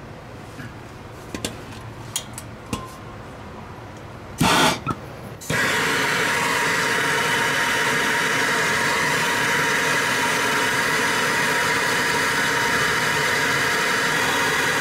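Handheld gas torch: a few light clicks, a short burst of gas about four and a half seconds in, then the flame hissing steadily and loudly. It is heating a rust-seized steering part on the car to free it.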